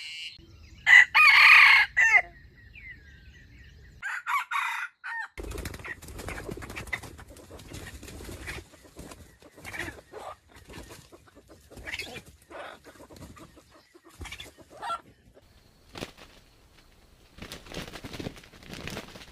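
A rooster crows loudly about a second in and gives a shorter call around four seconds. After that come scattered quieter clucks, clicks and rustles.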